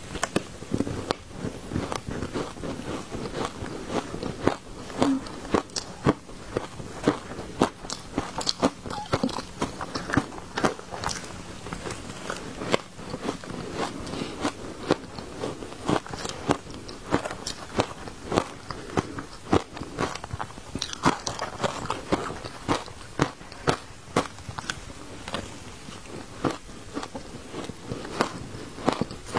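Crushed ice being bitten and chewed: a dense, irregular run of sharp crunches throughout.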